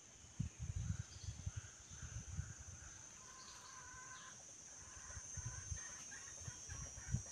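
Junglefowl giving soft, short clucking notes, repeated through the second half, over a steady high-pitched insect drone. Low dull thumps come near the start and again near the end.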